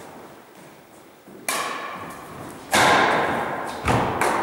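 Badminton racket strikes on a shuttlecock in a rally: three sharp cracks about a second apart, the middle one loudest, each ringing on in the gym's echo.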